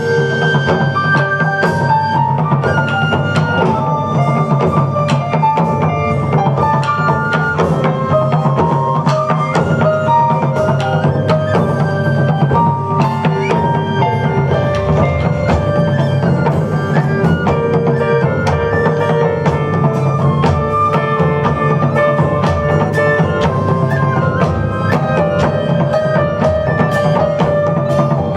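Japanese taiko drums played with a band of keyboard, bass guitar and drum kit: a steady, dense drum groove under a bass line, with a melody of held and moving notes running over the top.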